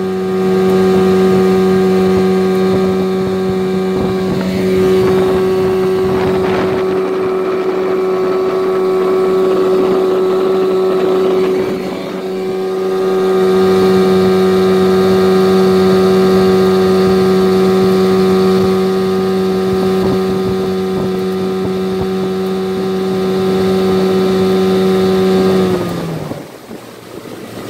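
Outboard motor driving a jon boat at steady cruising speed, with an even engine note. Near the end the note drops as the motor is throttled back.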